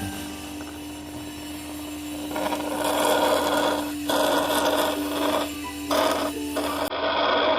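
Electric honey suction pump running with a steady hum, and from a few seconds in a noisy hissing slurp as its nozzle draws stingless bee honey and air from the nest's honey pots, breaking off briefly several times.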